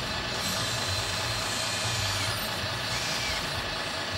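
Radio-controlled scale Cat excavator working, its electric hydraulic pump giving a steady mechanical whir with hiss, and other model vehicles running around it.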